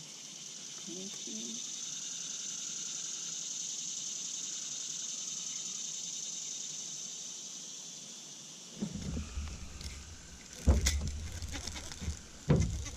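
Steady high-pitched chorus of swamp animals that fades after about eight seconds. Then low rumbling handling noise with sharp clicks and knocks as a baitcasting rod and reel are worked in a small jon boat.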